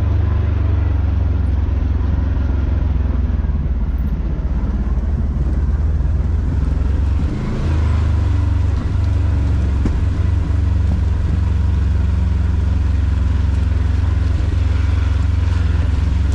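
Side-by-side UTV engine running steadily as it drives along a dirt trail: a deep, continuous drone that dips briefly about seven seconds in.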